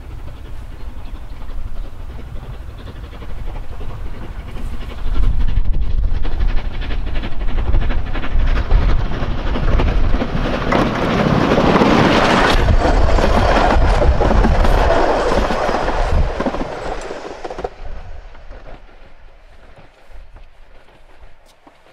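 Steam train hauled by Isle of Man Railway tank locomotive No. 12 Hutchinson running past, with rumble and wheel clatter. It builds over several seconds, is loudest a little past the middle, then dies away.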